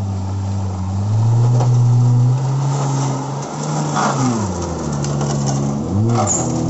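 A 4x4 off-road vehicle's engine running at a steady pitch, then revving up and down in several quick blips in the second half, as if the driver is working the throttle through rough ground.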